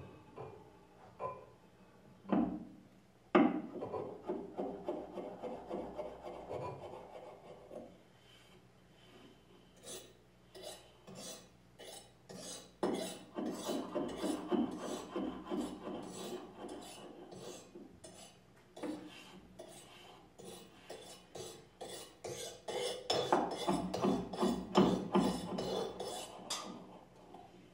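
A blade scraped back and forth across a small block on a tabletop, making rasping strokes in three spells, with quieter ticks between them. A single sharp knock comes about three seconds in.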